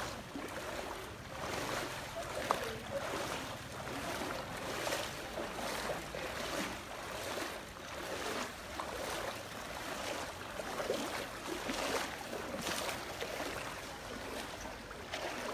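People wading through shin-deep floodwater in rubber boots, each stride a splash and slosh of water, in a steady walking rhythm.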